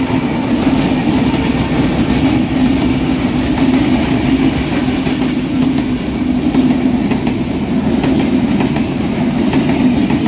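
Bangladesh Railway intercity train's passenger coaches passing close by: a loud, steady rumble of steel wheels running on the rails, with an even droning hum beneath it.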